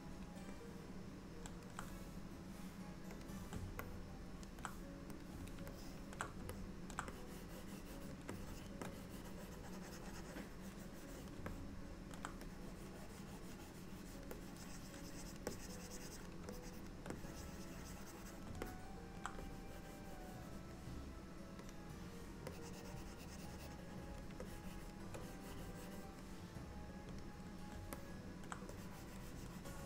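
Pen stylus scratching and tapping across a graphics tablet during digital sculpting, with scattered sharp clicks over a steady low hum.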